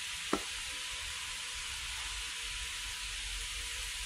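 Steady background hiss with one brief knock about a third of a second in.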